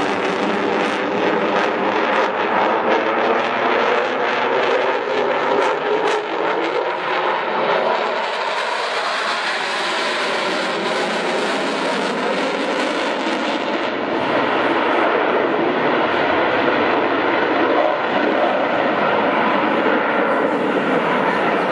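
Eurofighter Typhoon's twin Eurojet EJ200 turbofans heard from the ground during a display flight: loud, continuous jet noise with tones that slowly bend in pitch as the aircraft moves across the sky. It grows a little louder about two-thirds of the way through.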